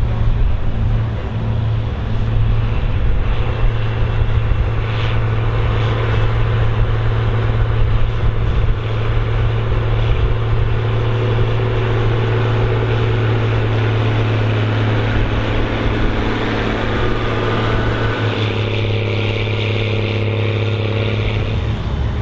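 Big farm tractor engine running steadily under load while pulling a plow.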